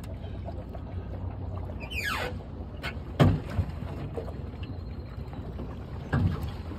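Small boat on the water: a steady low rumble, with two loud knocks about three seconds apart and a quick falling whistle about two seconds in.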